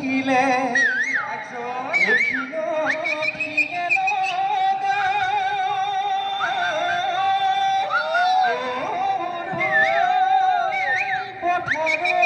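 Live Bihu music: dhol drums beating under a wavering melody that slides and trembles between held notes.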